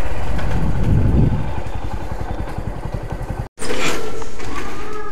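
Motorcycle engine running close by, with a brief rev about a second in and then a steady, evenly pulsing low note. The sound breaks off abruptly about three and a half seconds in and resumes at once.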